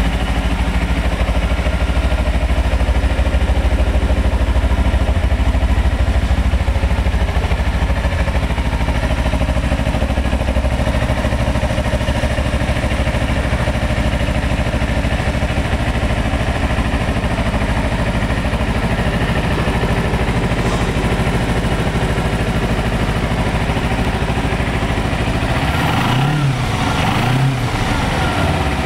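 A 2009 Kawasaki Ninja 250's carbureted 249 cc parallel-twin engine idling steadily. Near the end the throttle is blipped twice, the revs rising and falling quickly each time.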